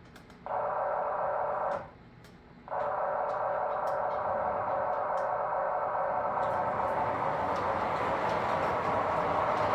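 Electronic horn of a Williams O gauge EP-5 model locomotive, played through its small onboard speaker: a short blast, a brief pause, then a long held blast.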